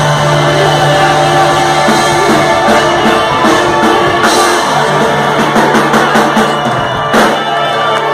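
Live ska band playing loudly: drum kit and a held bass note under the full band.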